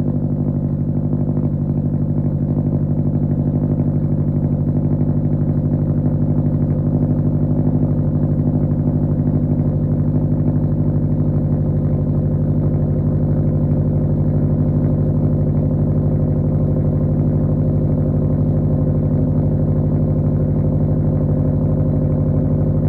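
2007 Subaru Impreza 2.5i's flat-four boxer engine idling steadily and loud shortly after a cold start, breathing through an unequal-length header, single cat and 3-inch exhaust with a Dynomax Bullet race muffler.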